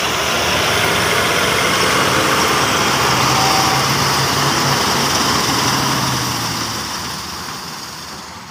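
Caterpillar 966F wheel loader's heavy diesel engine running steadily with a low hum. The sound fades out over the last two seconds.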